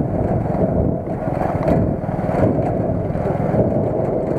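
Small single-cylinder moped engine running steadily under way, with a fast, even pulsing of its exhaust.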